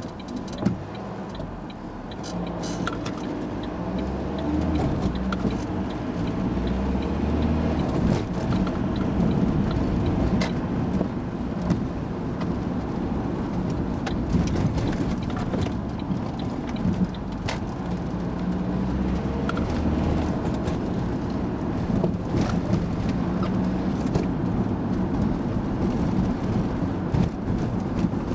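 Bus engine and road noise heard from inside the driver's cab. The engine grows louder a couple of seconds in as the bus moves off, then runs on steadily, with scattered short rattles and knocks.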